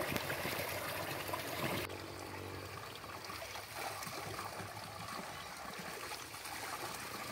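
Water running steadily from a spring's pipe outlet and splashing into a shallow pool and a plastic basin while a person washes under the stream. About two seconds in, the sound turns softer and duller.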